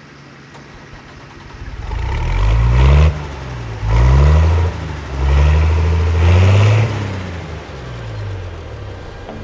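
A vehicle engine accelerating hard, its pitch climbing and dropping back three or four times as if changing up through gears, then easing off.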